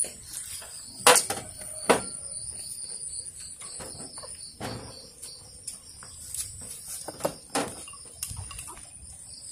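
Sharp clinks of chopsticks and spoons against porcelain bowls during a meal, loudest twice near the start and a few more later. An insect's steady high-pitched trill runs underneath.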